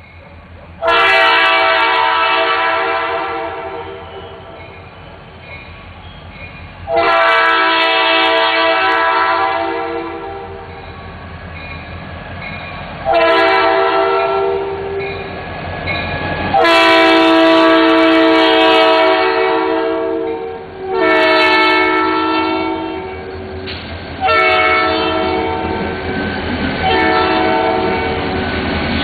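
BNSF diesel locomotive's multi-chime air horn sounding seven blasts in a row, several long and the later ones shorter, each a steady chord of several tones.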